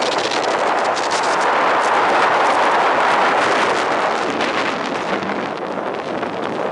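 Wooden roller coaster train running at speed on its wooden track: a loud, continuous rattling clatter of the wheels mixed with wind rushing over the microphone, loudest a couple of seconds in.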